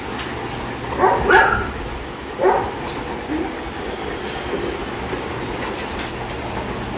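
A dog barking: short barks about a second in and again about a second later, over a steady background hum.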